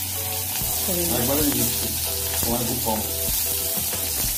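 Hot oil in a metal wok sizzling steadily as chopped onion, garlic, green chilli and ginger are tipped in from a bowl.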